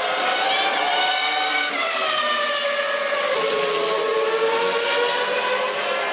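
Formula One car engines running at high pitch, several at once, their note sliding downward through the middle of the clip.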